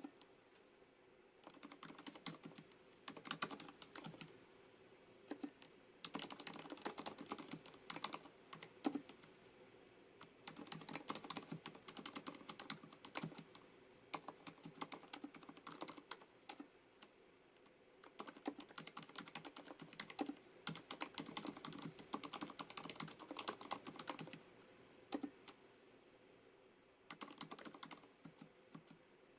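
Typing on a FILCO Majestouch MINILA-R Convertible compact mechanical keyboard with Cherry MX Silent switches: runs of rapid keystrokes separated by brief pauses.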